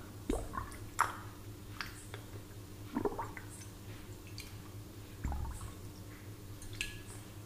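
Water plopping and bubbling in a glass as a plastic straw is worked in it: about half a dozen separate plops and gurgles, some of them quick rising chirps, over a low steady hum.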